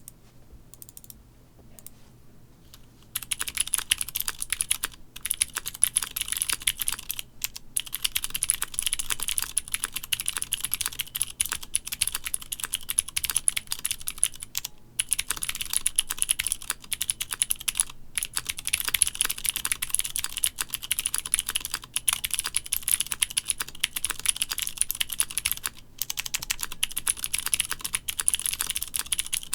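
Fast, continuous typing on a mechanical keyboard with Cherry MX switches on an aluminium plate: a dense run of sharp key clicks and clacks. It starts about three seconds in after a few faint taps, with a handful of brief pauses.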